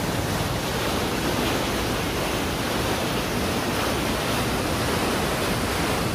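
River water rushing and churning white below a concrete weir or sluice, a steady noise with no let-up.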